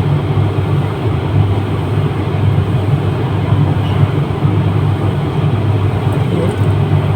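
A steady, loud low rumble with a constant hum, like a running fan or motor, unchanging throughout.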